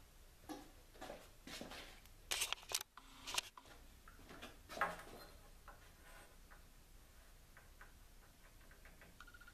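A shot glass and a pencil handled on a wooden board: a scatter of light knocks and clicks in the first five seconds, then faint ticking as the pencil traces round the glass's base.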